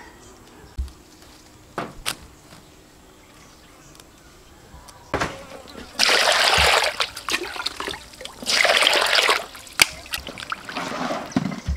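Water poured into a stainless steel bowl, splashing in two loud gushes about six and eight and a half seconds in, then a shorter splash near the end. Before that there are only a few light clicks.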